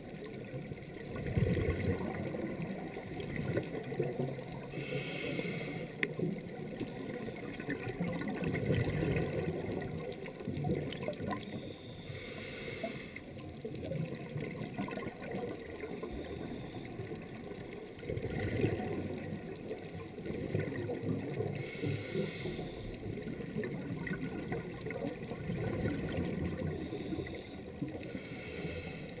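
Underwater sound through a camera housing: a scuba diver breathing through a regulator, with exhaled bubbles gurgling and hissing in surges every few seconds.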